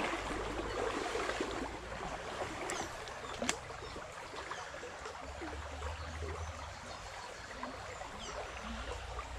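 A small stream trickling gently, with a couple of faint clicks about three seconds in.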